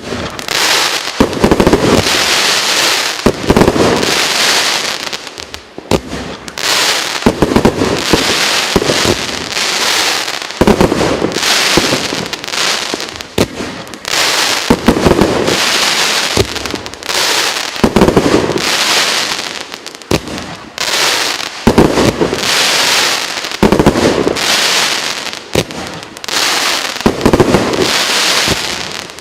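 A 100-shot, 1.2-inch firework cake (multi-shot barrage battery) firing shot after shot in rapid succession. The launches and bursts come in surges that swell and ease every couple of seconds.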